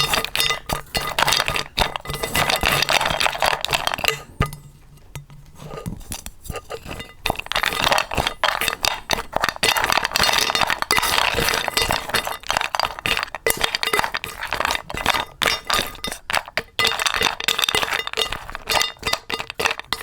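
A spoon clinking and scraping against a bowl in quick, irregular strokes as dog food is mixed, with a short pause about four and a half seconds in.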